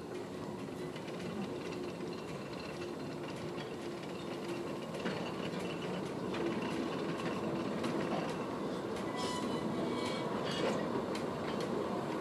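Narrow-gauge passenger carriages rolling slowly past on the track: a steady rumble of wheels on rail that grows gradually louder, with a run of sharp clicks from the wheels over rail joints and pointwork near the end.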